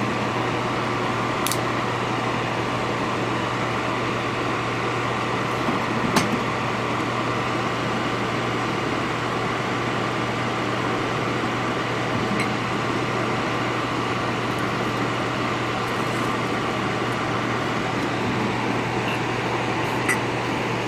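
Steady whirring of an electric bench fan with a low hum, broken now and then by a few faint clicks of metal tools being handled.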